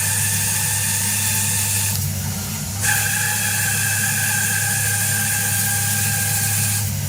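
CNC lathe turning a part with a light cut: a steady machine hum under a high, steady whine from the cutting insert. The whine drops away for under a second about two seconds in, then comes back stronger.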